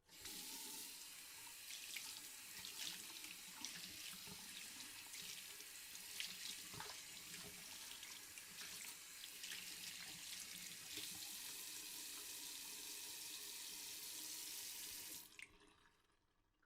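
Water from a tap running into a sink while a person washes their hands, with frequent small splashes. The water cuts off about a second before the end.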